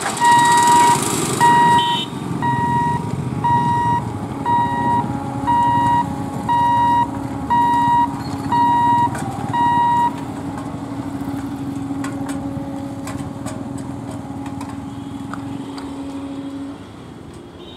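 Level-crossing warning beeper sounding one high beep about every second, stopping about ten seconds in, over the running of motorcycles and other traffic crossing the tracks. A loud rush of an EMU train passing opens the sound.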